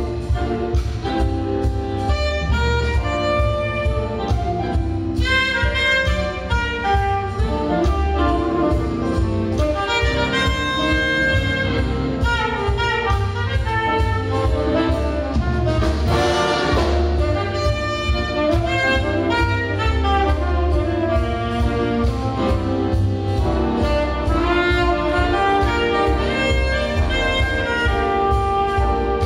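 Big band jazz orchestra playing live in a concert hall, saxophone and brass sections over a steady bass and drums.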